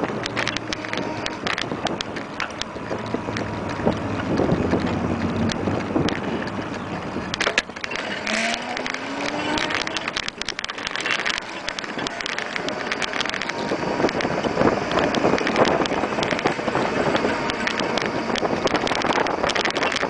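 Wind buffeting the microphone with rattling and tyre noise from a small vehicle riding along a paved street, with many short clicks from the mount.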